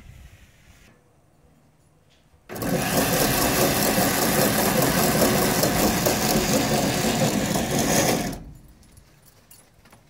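Electric drill driving the bicycle-sprocket chain drive of a homemade rope-spinning rig, twisting the baler-twine strands. It starts abruptly about two and a half seconds in, runs steadily for about six seconds, then stops.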